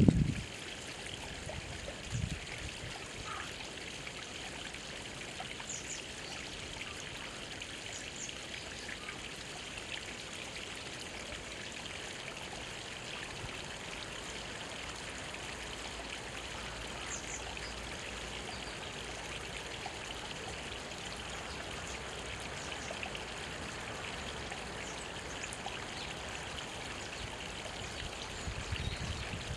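Small mountain stream trickling and babbling steadily between rocks. A brief low knock sounds about two seconds in, and a few faint short high chirps come and go over the water.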